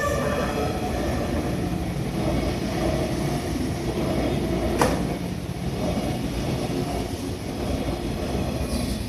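An Ome Line electric train passing a level crossing: a steady rumble of wheels and motors on the rails, with one sharp click about five seconds in.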